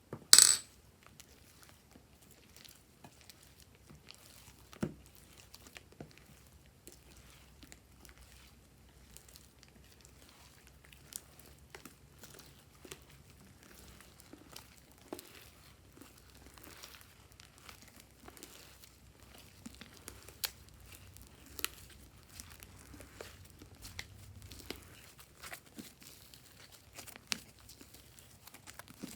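Slime-making handling sounds: scattered soft crackles, clicks and crinkles, with one loud sharp snap just after the start.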